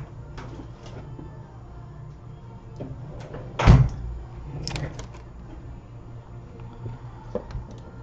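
A single loud, dull thump about four seconds in, followed by a few light clicks and taps, over a steady low hum.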